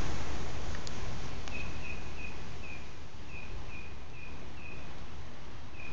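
Wind buffeting the phone's microphone as a low, rumbling rush, with leaves stirring in the breeze. Over it comes a run of short, high chirps, about two a second.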